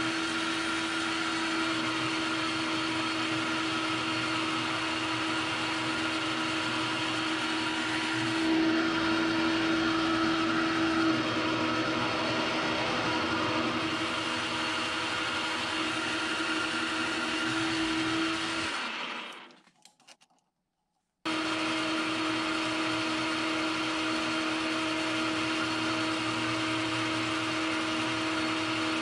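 13-inch South Bend metal lathe running while turning down the outside diameter of a steel bar: a steady mechanical hum with several held tones. About two-thirds of the way through it fades out, goes silent for a couple of seconds, then comes back abruptly.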